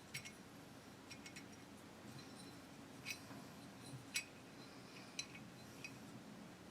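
Faint, light metallic clicks and taps, about eight scattered over the stretch, the sharpest about three and four seconds in: a steel pin punch and trigger being worked around inside a rifle's trigger housing while feeling for the pin hole.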